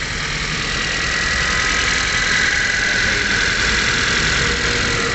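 Ford Fiesta's four-cylinder engine idling steadily just after start-up, with a high whine that grows louder in the middle and eases off near the end. The cooling system has just been refilled after a radiator replacement, and the engine is being left to warm up.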